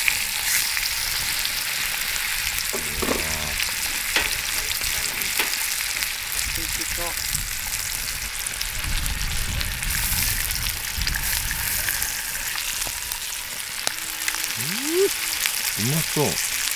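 Steaks sizzling in a skillet set over a wood fire: a steady frying hiss with occasional short pops.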